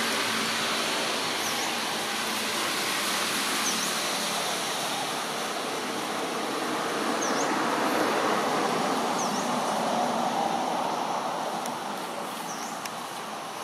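Steady broad noise of road traffic, swelling toward the middle and easing off near the end, with a faint short high chirp repeating about every two seconds.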